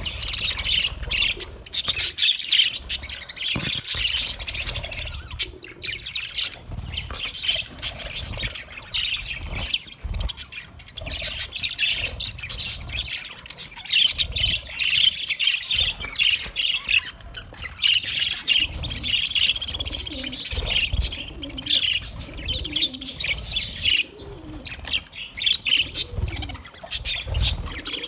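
A flock of budgerigars chattering and chirping together, a dense, unbroken mix of many birds' calls.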